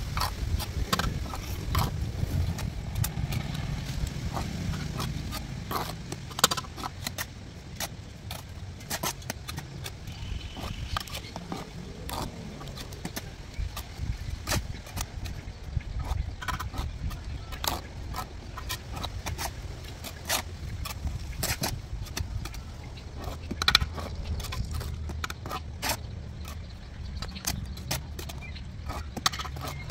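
Bricklaying: a steel trowel scraping and scooping mortar and tapping hollow clay bricks as they are set in place. The result is irregular sharp clicks and scrapes over a steady low rumble.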